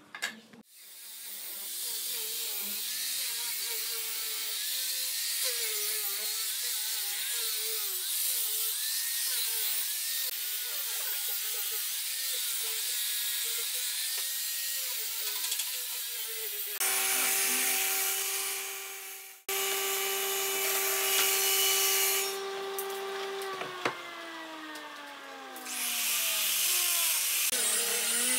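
Handheld corded power tools working pine. First a motor whirring with its pitch wavering under load. Then a tool runs freely at a steady pitch and winds down about three-quarters of the way through, and near the end a small angle grinder with a sanding disc starts sanding the board.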